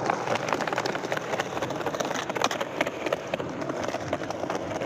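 Skateboard wheels rolling over stone paving slabs: a steady rough rumble with many small clicks.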